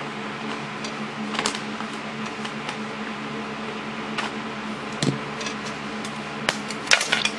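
Thin glass fluorescent backlight tube from a laptop LCD being bent until it snaps, heard as a few sharp clicks and cracks, the loudest cluster near the end. A steady low hum runs underneath.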